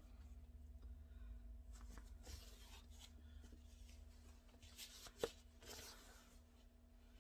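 Faint rustling and sliding of fabric patchwork squares being handled and laid out, with one sharp click about five seconds in, over a steady low hum.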